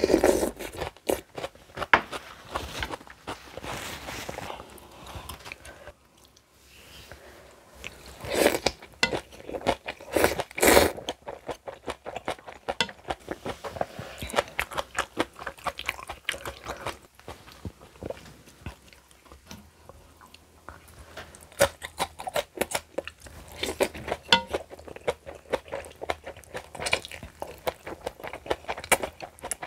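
A person eating spicy kimchi, a run of crisp crunches and chewing with a short pause about six seconds in.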